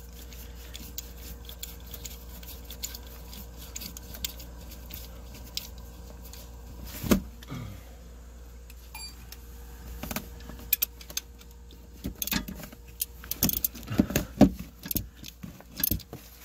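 Metal tools clinking and tapping while a spark plug thread-repair insert is worked into an aluminum cylinder head. There is one sharp knock about seven seconds in, and the clinks come thicker and louder over the last few seconds.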